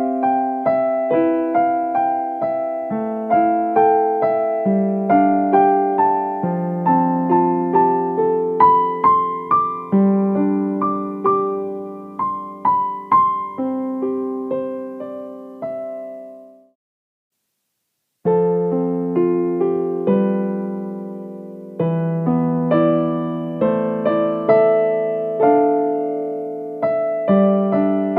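Piano music, a run of single notes over held chords. About two-thirds of the way through it breaks off for about a second and a half of silence, then starts again.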